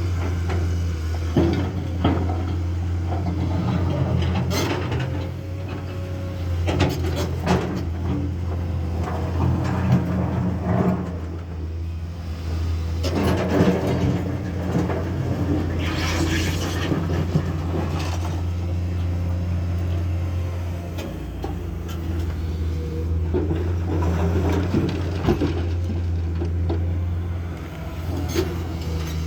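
Komatsu excavator's diesel engine running steadily under load, with irregular clanks and rattling crashes of the bucket digging and dumping material into a dump truck.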